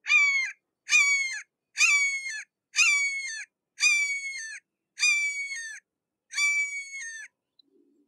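Red-shouldered hawk screaming a series of seven calls at about one a second, each call ending in a downward slur.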